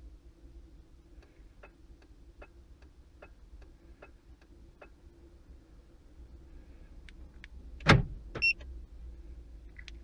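Faint regular ticking, then about eight seconds in a car's central door locks actuate with one sharp thunk, followed half a second later by a short electronic beep. This is the StarLine A9 alarm responding to a newly paired key fob.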